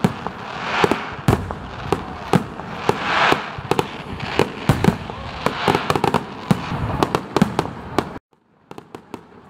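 Fireworks display: shells bursting in rapid, irregular sharp bangs, several a second. The bangs cut off abruptly near the end and come back fainter.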